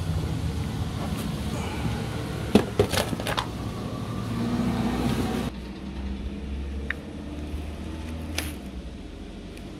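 Wind rumbling on the microphone, with a quick run of sharp clatters about two and a half seconds in as a lidded checkpoint box and its contents are handled. About halfway through the wind drops off abruptly, leaving a quieter background and a single light knock near the end as a wooden rubber stamp is brought down to the card.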